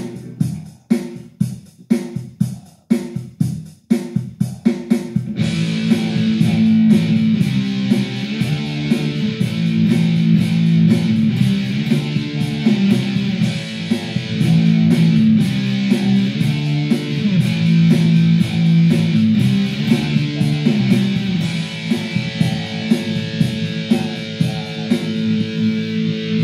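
Electric guitar playing a heavy rock/metal rhythm riff over drums: short, separated chord stabs with gaps for about the first five seconds, then a continuous riff.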